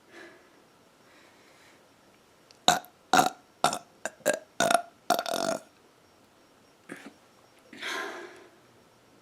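A woman burping: a quick run of about seven short, loud burps about three seconds in, the last one drawn out, then a softer, longer one near the end.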